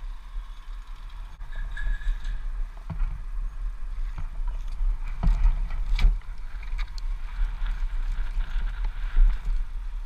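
Wind buffeting a helmet-mounted camera's microphone high in a tree, a gusting low rumble. A few sharp knocks and rustles of branches and foliage come through, the loudest about five and six seconds in and again near nine seconds.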